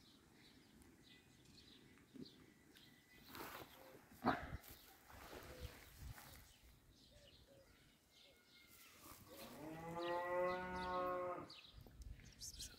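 A cow mooing once in one long, low call lasting a little over two seconds, near the end. Earlier there are a few faint rustles and one sharp click.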